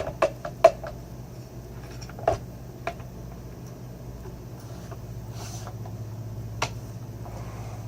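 A few light clicks and taps of vacuum cleaner parts being handled and fitted together, several in the first three seconds and one more near the end, over a low steady hum.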